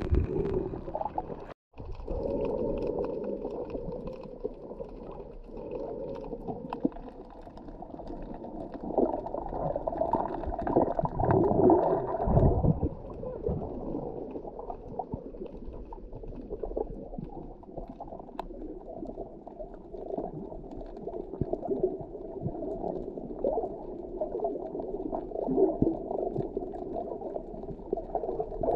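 Muffled underwater ambience picked up by a submerged microphone: a dull, churning water noise with no speech. It cuts out for an instant near the start and swells louder for a few seconds midway.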